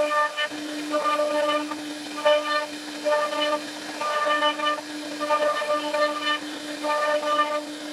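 CNC router spindle running with a steady high whine while its carving bit cuts a relief into wood. A harsher, brighter whine at the same pitch swells and fades about once a second as the cut goes on.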